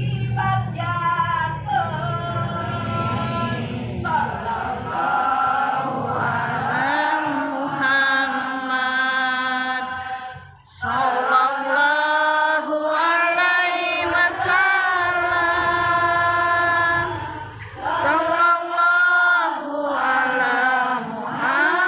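Unaccompanied singing in long, gliding held phrases, breaking off briefly about halfway through and again near the end.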